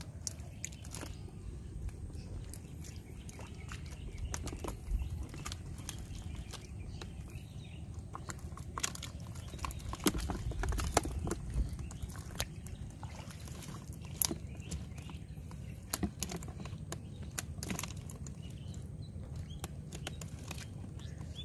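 Freshly caught fish flapping in a plastic crate, making irregular light taps and slaps against the plastic over a steady low rumble.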